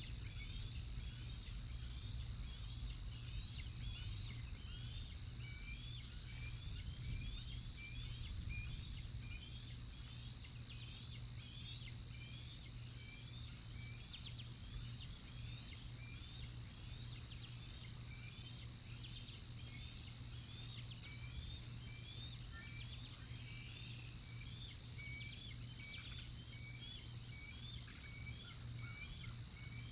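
Outdoor ambience: a steady run of short, high chirps, about two a second, over a low rumble and a steady high hiss.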